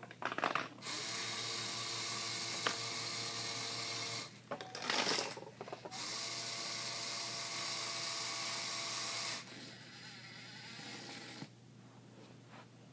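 Lego pinsetter's small electric motor driving plastic gears, running in two long spells of about three seconds each with a steady whine. Between the spells comes a short clatter of plastic parts, and near the end a quieter running sound that then stops.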